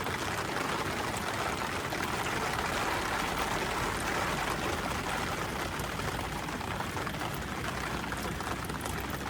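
Steady rain falling on the tent, an even hiss.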